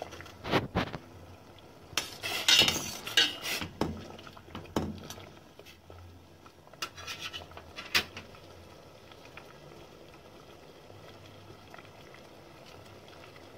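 Metal ladle clinking and scraping against the sides of a stainless steel pot while stirring water with herb leaves, cloves and garlic. The clinks come in scattered clusters over the first eight seconds or so.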